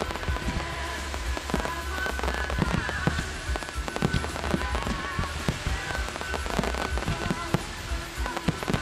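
Fireworks display going off in a dense run of bangs and pops, over the show's accompanying music with a steady deep bass.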